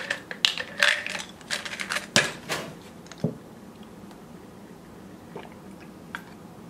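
A quick run of light clicks and knocks from kitchen items being handled, in the first three seconds or so, followed by a quiet stretch of faint room noise.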